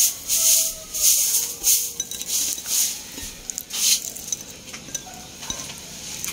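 Crisp fried dried fish (bulad) crackling in short crunches, about two a second, as it is torn apart and chewed. The crunching dies down about four seconds in.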